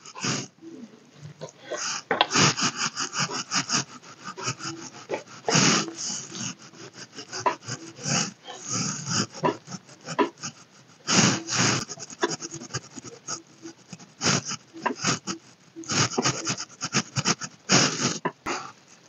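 Makeup brush sweeping blush powder over the cheek: a run of short, soft, irregular brushing strokes, heard close on a clip-on microphone.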